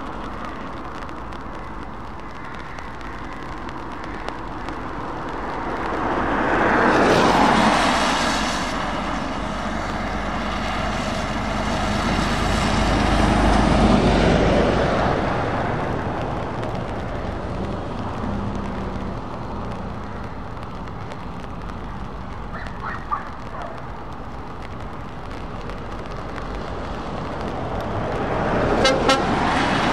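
Heavy trucks and cars passing on a wet road, tyres hissing on the wet tarmac over the diesel engines. Two louder pass-bys come about a quarter and about halfway through, and another vehicle draws close near the end.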